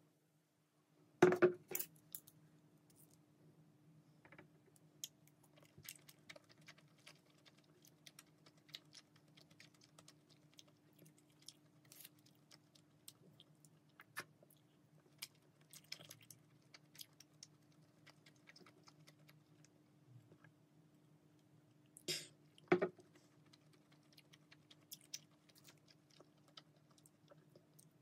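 Quiet eating sounds: chewing steamed dumplings and light clicks of wooden chopsticks against foam trays and a sauce dish, over a steady low hum. A louder knock about a second in as the beer glass is set down on the table, and another short clatter about 22 seconds in.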